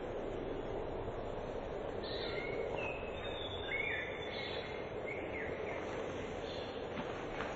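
Birds chirping with short high whistled notes, over a steady outdoor background noise.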